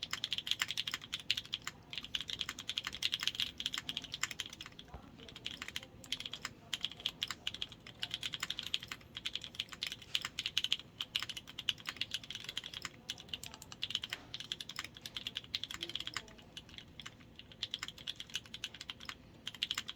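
Typing on a Tofu84 mechanical keyboard with NovelKeys Cream linear switches, Cherry stabilizers and PBT keycaps: a fast run of keystroke clicks in bursts with short pauses. The builder finds it sounds rough, needing more tuning.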